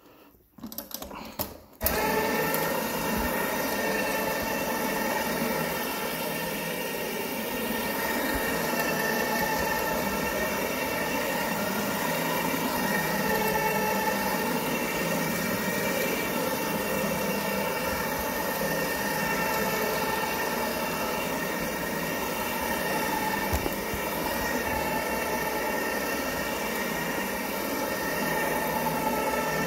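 Counter-rotating brush (CRB) carpet cleaning machine switched on about two seconds in, its motor and brushes then running steadily with a hum of several steady tones as it is pushed over carpet.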